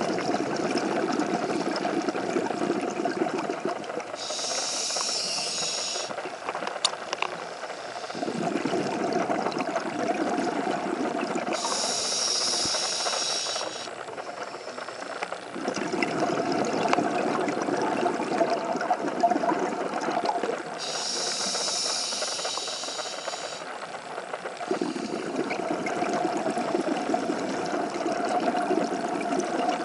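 Scuba diver breathing through a regulator underwater: a short hiss on each inhale, then a longer bubbling rush on each exhale, repeating about every eight or nine seconds, three full breaths.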